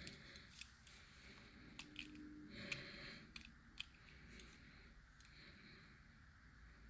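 Near silence with a few faint, scattered clicks of a small die-cast toy car being handled and turned over in the hand.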